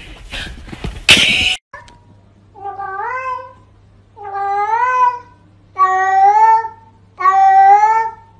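A loud burst of noise about a second in, then a cat meowing four times, drawn-out meows about a second and a half apart, each rising a little in pitch.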